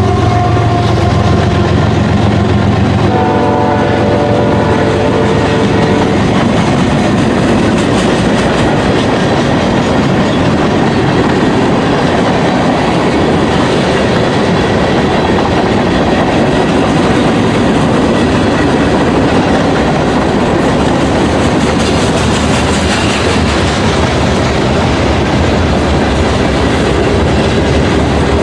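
CSX manifest freight train's tank cars, boxcars and covered hoppers rolling past over a grade crossing: a steady rumble of wheels on rail with clickety-clack. A locomotive horn sounds for about three seconds, starting about three seconds in.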